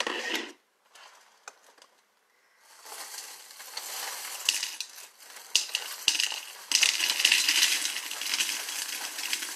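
Dry cereal (frosted-flake Lucky Charms) pouring into a coconut-shell bowl: a rustling, rattling stream of flakes and marshmallows with a few sharp clicks. It starts about three seconds in and grows heavier in the second half.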